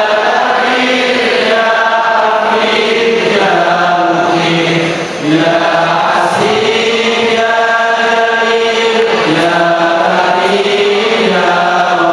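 Voices chanting together in long, held, slowly gliding notes.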